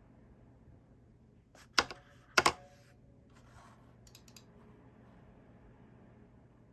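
Mechanical gaming keyboard fitted with Razer Phantom keycaps being pressed: two loud key clacks about half a second apart near two seconds in, then a quick run of lighter key clicks around four seconds in.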